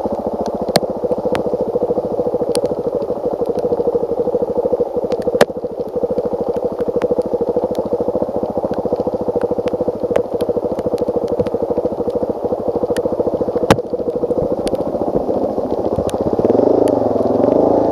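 Suzuki DR-Z400S single-cylinder four-stroke engine running steadily at low speed while the bike is ridden, with occasional sharp clicks. Near the end the revs rise and then fall back.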